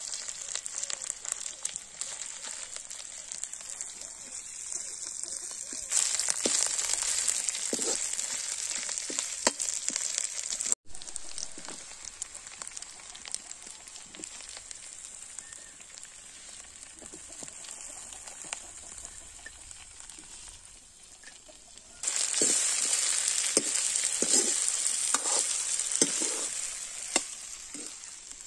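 Onions, spices and then tomato pieces frying in oil in a metal kadai, sizzling steadily while a steel ladle stirs and scrapes against the pan with scattered clinks. The sizzle gets louder twice, about six seconds in and again near the end.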